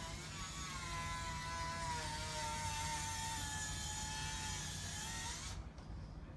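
A small motor whining steadily, its pitch sliding slowly down, then stopping abruptly about five and a half seconds in, over a low rumble.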